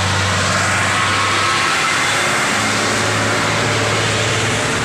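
Motorcycle engine running steadily, its note rising slightly about halfway through, under a loud even hiss.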